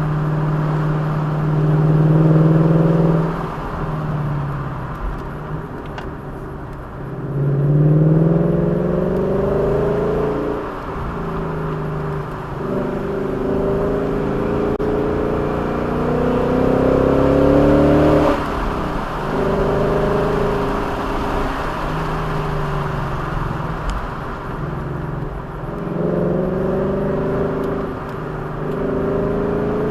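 A vehicle engine accelerating and easing off over and over, its pitch climbing for several seconds and then dropping sharply, about four times, over a steady low road rumble.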